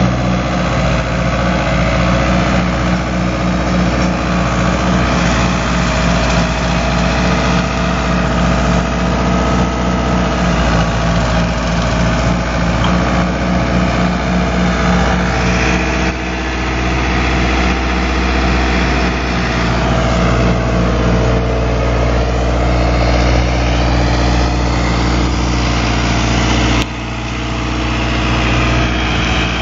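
Fiat 766 tractor's diesel engine running steadily while it drives a 2-metre Agram rotary mower cutting grass. The sound drops abruptly twice, about halfway through and near the end.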